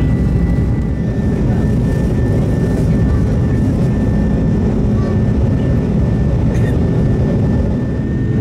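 Cabin noise of an Airbus A330-200 heard from inside the passenger cabin: a loud, steady jet-engine roar under takeoff or climb power, with a faint steady high whine over it.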